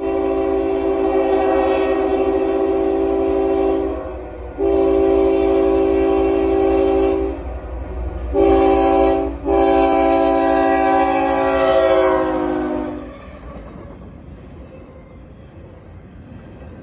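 Canadian Pacific freight locomotive's air horn sounding the grade-crossing signal: two long blasts, a short one and a long one, the pitch dropping near the end of the last blast as the locomotive passes. Then the steady rumble of the train rolling by.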